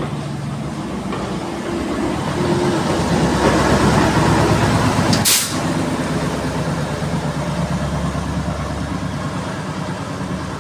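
Small diesel shunting locomotive at the rear of a departing train, its engine running with a steady throb as it rolls slowly past, louder as it draws level. There is one short, sharp hiss about five seconds in.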